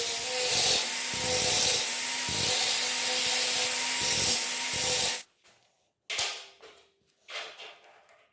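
Workshop tool working a workpiece: a dense scraping noise with a faint steady whine and repeated strokes, which stops abruptly about five seconds in. Then a few short knocks follow.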